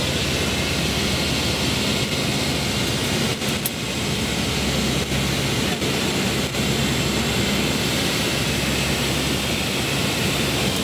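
Steady drone of a C-130 Hercules's four turboprop engines and propellers, heard inside the cockpit on final approach to landing.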